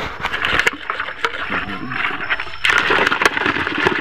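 Live giant land crabs scrabbling in a plastic bucket as it is handled: rustling and scraping with many sharp clicks, louder from about two and a half seconds in.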